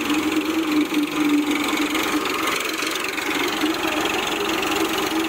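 Eicher 551 tractor's diesel engine running steadily, with a second tractor engine behind it.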